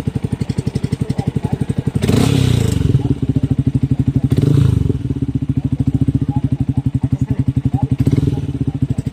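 Motorcycle fitted with an MVR1 aftermarket exhaust, idling with an even, pulsing beat. The throttle is blipped three times, at about two seconds, four and a half seconds and eight seconds in, each giving a short, louder burst of exhaust note.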